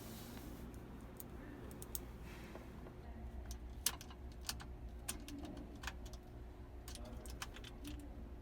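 Irregular light clicks and taps of small parts being handled while a crane-machine claw is fitted, over a steady low hum.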